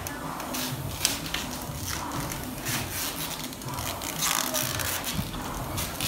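Concept2 rowing machine being rowed hard: its air-resistance flywheel whooshes in surges with each stroke.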